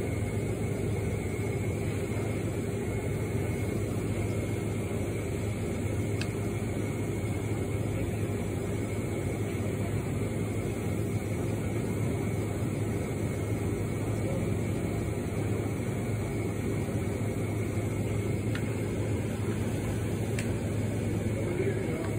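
Steady, unchanging low machine hum of café equipment, with a few faint ticks.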